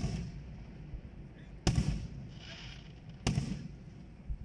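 Aerial firework shells bursting in the sky: one bang right at the start, then two more about a second and a half apart, each trailing off in an echo.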